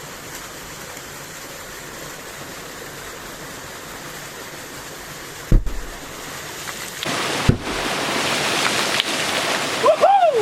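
Stream water rushing steadily. About halfway through comes a sharp, deep thud, then a second one about two seconds later, as a homemade 'aloo bomb' goes off in the stream for fishing. After the thuds the water noise is louder.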